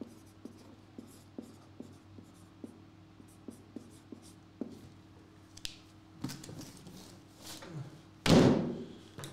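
Felt-tip permanent marker writing on a cardboard box: a run of short scratchy strokes. A few seconds later comes handling noise, with one loud, brief rustle about eight seconds in.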